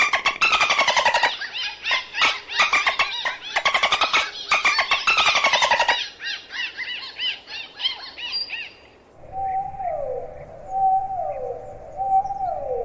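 Dolphin vocalizations: rapid trains of clicks and squeaky, pulsed squawks with bending pitch, then a run of quick arching chirps. About nine seconds in the recording changes to a lower whistle that glides downward, repeated about every second and a half.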